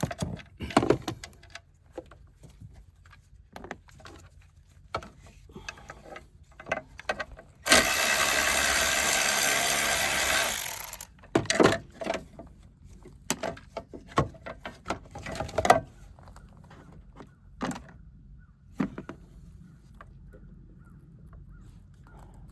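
Clicks and knocks of hand tools and parts being handled while working on the car, with a steady three-second whir or rush about a third of the way in, typical of a cordless power tool.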